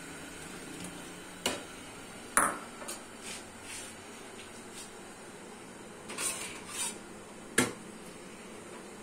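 Stainless-steel kitchenware clinking and clanking as cups and dishes are handled at a steel dish rack: several separate strikes. The loudest comes about two and a half seconds in with a short ring, and a sharp knock comes near the end.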